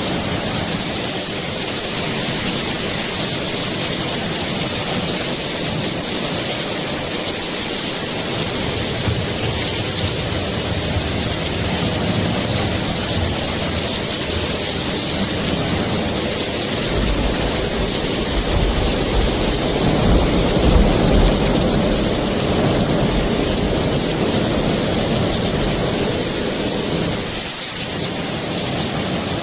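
Heavy rain falling in a steady hiss, with a low rumble of thunder that swells a little past halfway and dies away near the end.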